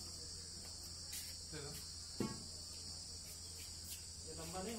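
A steady, high-pitched insect drone running unbroken, with a single sharp click about two seconds in.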